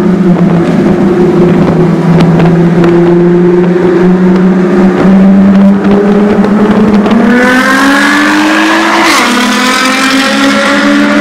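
Modified Nissan GT-R's twin-turbo V6 through an Armytrix exhaust, in a tunnel. It runs at a steady drone, then accelerates hard about seven seconds in: the pitch climbs, drops suddenly at an upshift near nine seconds, and climbs again.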